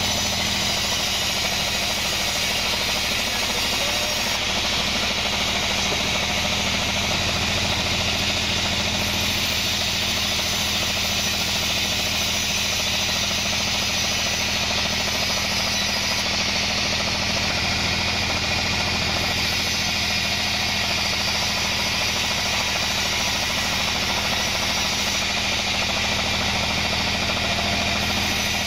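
Band sawmill running steadily with its blade cutting lengthwise through a kenanga (ylang-ylang) log: a constant machine drone with a dense hiss of sawing on top.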